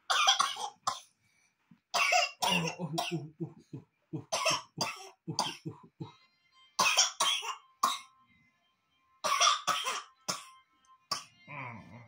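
A small child coughing over and over, in quick runs of two to four short coughs with pauses between the runs.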